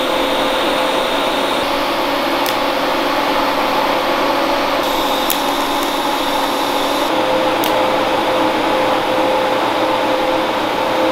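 TIG welding on steel tubing: a steady hiss with a faint hum from the arc, changing in tone a few times through the weld.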